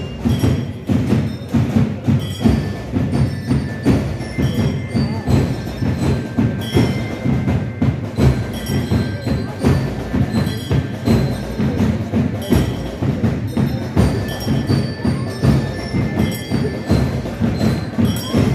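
Marching band playing in the street: drums keep a steady march beat about twice a second while metal bells ring out short high notes of the tune.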